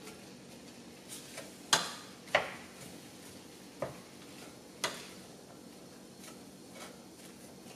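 Wooden spoon stirring meat and onions in a stainless steel pan, knocking against the pan's side in sharp clacks at irregular intervals, four of them loud, over a faint steady sizzle of the cooking meat.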